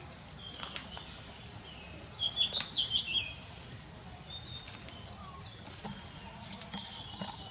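Birds chirping, with a burst of loud high chirps about two seconds in and scattered softer calls around it.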